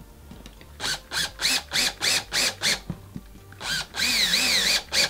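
Cordless drill/driver driving small screws through a 3D-printed plastic track spacer into a wooden board, run in short trigger pulses: about seven quick bursts of motor whine, roughly three a second, then a short burst, one longer run with the pitch wavering up and down, and another short burst at the end.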